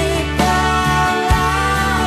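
A song playing, with sustained chords and a deep drum hit a little past halfway.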